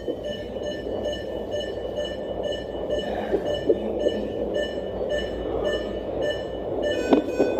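Fetal heartbeat picked up by a Doppler fetal heart monitor: a fast, rhythmic whooshing with a short electronic beep on each beat, nearly three beats a second. A few louder knocks come near the end.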